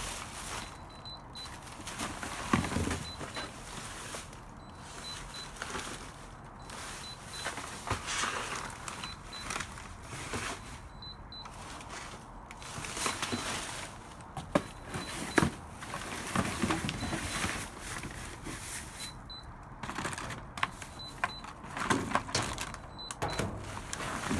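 Rustling and knocking of trash and packaging being handled in a dumpster. Through it come short, high electronic beeps from small discarded devices, often two or three close together, repeating every second or two.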